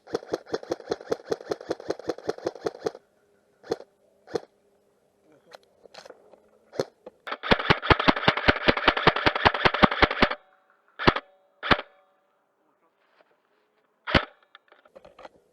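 Airsoft guns firing on full auto: a rapid burst of about three seconds, a few single shots, then a louder, nearer burst of nearly three seconds about halfway through, followed by a few more single shots.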